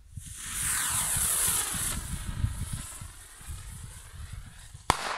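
Firework rocket launching with a loud hiss that fades away as it climbs, then a single sharp bang of its burst near the end.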